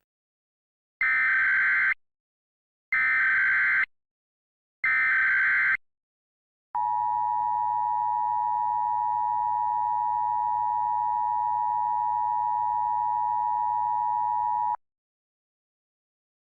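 Emergency Alert System SAME header: three one-second bursts of warbling data tones, about a second apart. Then comes the EAS two-tone attention signal, a steady dual-tone alarm held for about eight seconds before it cuts off. Together they open a mock Emergency Action Notification alert.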